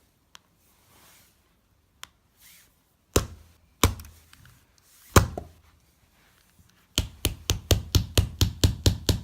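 Hard blows striking an old Nokia flip phone. There are three separate hits, then a fast run of about ten blows, four or five a second, near the end.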